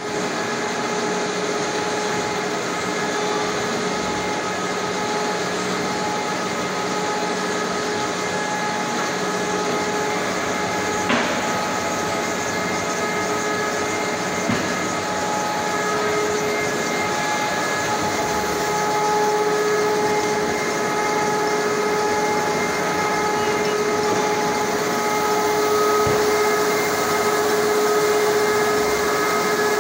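Hunkeler continuous-paper finishing line running steadily at a slow 70 metres per minute, unwinding a roll of 520 mm paper: a steady machine hum with several held tones, the lowest growing a little louder about halfway through. Two brief clicks come near the middle.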